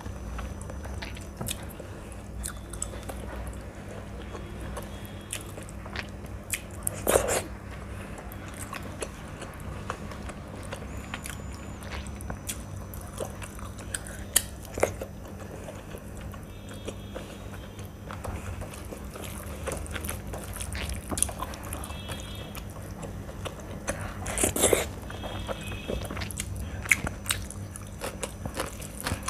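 Close-miked chewing and wet mouth sounds of someone eating rice and chicken curry by hand, with small squelches and clicks of fingers working rice into the gravy. A few louder mouth sounds stand out, about seven seconds in and again near the end.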